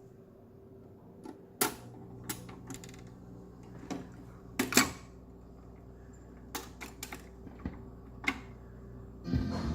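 Vintage Columbia 45 rpm record player's mechanism clicking and clunking irregularly, about a dozen times, over a steady low hum as it is set going. Music from the record begins just before the end.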